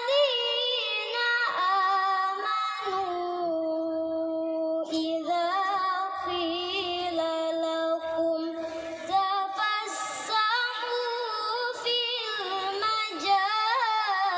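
A young girl's voice reciting the Quran in melodic tilawah style: long drawn-out notes with ornamented turns in pitch, with short pauses for breath between phrases.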